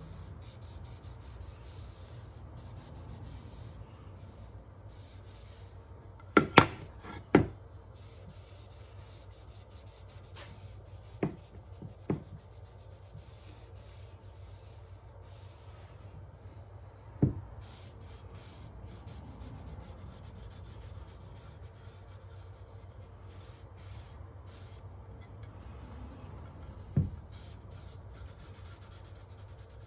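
Lint-free cloth rubbing Danish oil into an oak board in repeated back-and-forth strokes, over a steady low hum. Several sharp wooden knocks as the piece is handled: three close together about six to seven seconds in, and a few single ones later.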